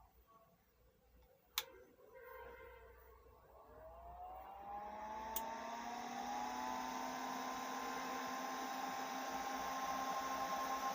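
Power amplifier just switched on: a sharp click about a second and a half in, then its cooling fan spins up, a whir rising in pitch before settling into a steady run with hiss.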